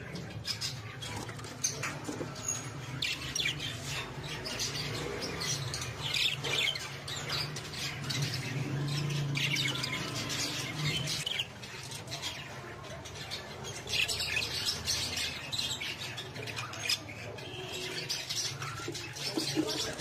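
A flock of budgerigars chattering and chirping continuously, with sharp squawks mixed in, over a steady low hum.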